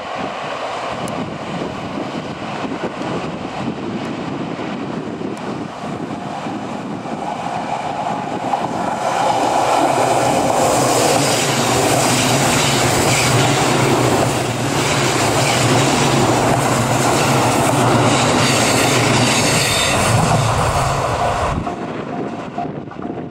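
KiHa 85 series diesel express train passing close by: the diesel engines and the rolling noise of the wheels build up about eight seconds in to a loud, steady pass with a low engine tone, then cut off suddenly near the end.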